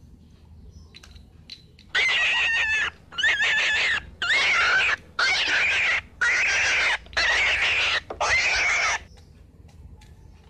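Animal squealing sound effect, seven short squeaky calls in quick succession with a wavering high pitch, each starting and cutting off abruptly.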